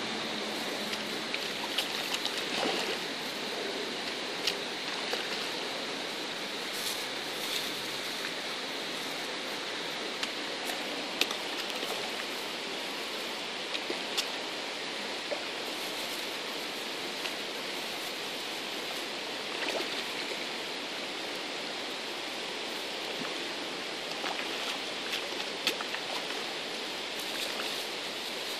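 Shallow stream running steadily over stones, a constant rushing, with short sharp clicks here and there.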